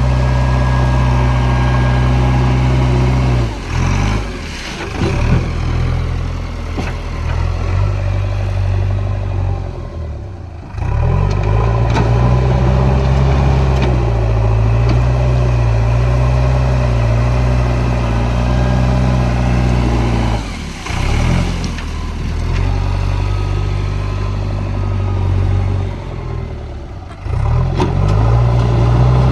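Diesel engine of a JCB backhoe loader running hard and steady. Its note drops and shifts briefly four times as the machine works through its loading cycle.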